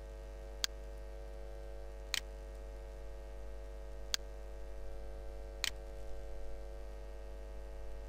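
Four sharp computer mouse clicks, spaced about one and a half to two seconds apart, over a faint steady electrical hum.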